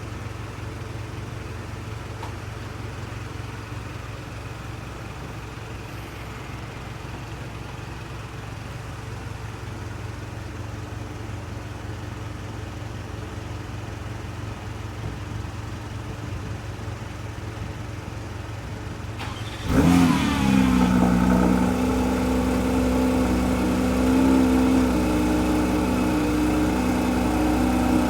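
Porsche 911 GT3's naturally aspirated flat-six engine starting about twenty seconds in: a sudden, loud catch with a brief rise in revs, then a steady idle. Before the start there is only a low, steady hum.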